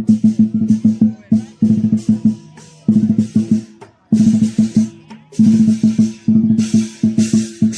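Lion dance drum and clashing cymbals playing fast rhythmic phrases of rapid strokes, broken by short pauses about two, four and five seconds in.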